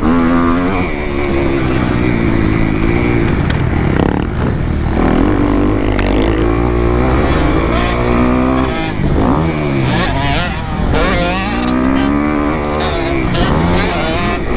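Kawasaki KX250F dirt bike's four-stroke single-cylinder engine revving hard under riding load, its pitch repeatedly climbing and dropping as the throttle is worked. It briefly falls off about four seconds in and again around ten seconds in.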